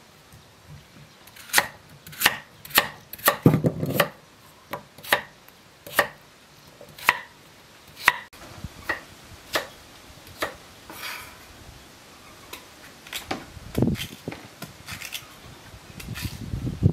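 A cleaver chopping carrots into chunks on a thick wooden chopping block: sharp, irregular knocks, about two a second, easing off for a few seconds past the middle, then picking up again near the end.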